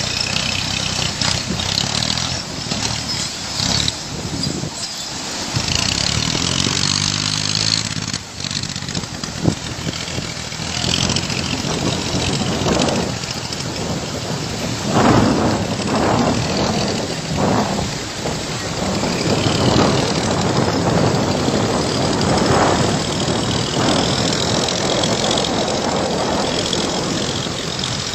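Motor vehicle engine running, revving up briefly about six seconds in, over a steady rushing noise with louder surges midway.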